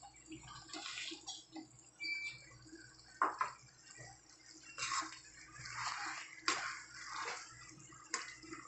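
Steel spoon scraping and clinking against a steel kadhai as mashed potatoes are pushed and stirred into cooked vegetables, in irregular strokes with a couple of sharper clinks near the end.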